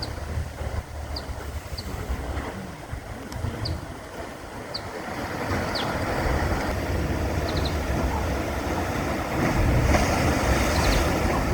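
Sea surf surging and washing through the blowhole's rocky channel, the rush of water swelling about halfway through and again near the end, with wind buffeting the microphone. Short high chirps sound at intervals over it.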